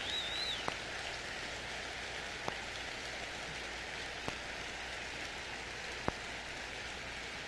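Vinyl record surface noise: steady hiss and crackle from the groove, with a sharp click about every 1.8 seconds, once per turn of a 33⅓ rpm LP, from a scratch or defect on the disc. A faint high warbling tone sounds briefly at the very start.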